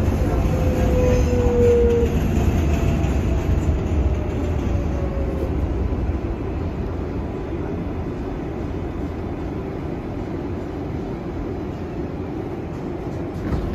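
R188 subway train slowing to a stop, a thin whine from its electric motors falling slightly in pitch under the rumble. The sound eases off over the first few seconds and then settles to the steady hum of the car standing still.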